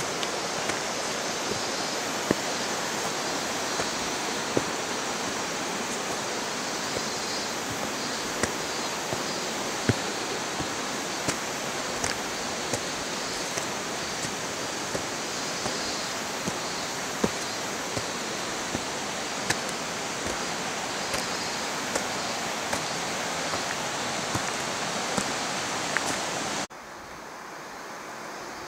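Rushing water of a mountain stream, a steady even roar, with short sharp clicks or knocks every second or so. Near the end it drops suddenly to a quieter, duller rush.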